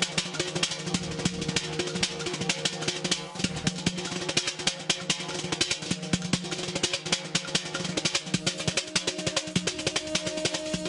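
Azerbaijani folk-pop ensemble playing instrumental music: rapid, dense drumming over steady held notes from the melody instruments.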